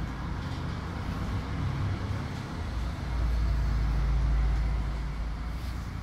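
Low rumble of a passing motor vehicle, swelling about three seconds in and easing off near the end.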